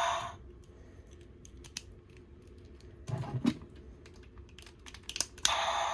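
Hard plastic clicking and scraping from handling a DX Tega Sword toy and pushing a Sentai ring into its ring slot: scattered light clicks, with louder rubbing bursts about three seconds in and near the end.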